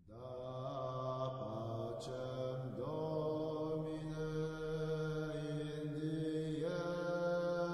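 Slow intro music of long held chant-like tones, the chord shifting every second or two over a deep held note.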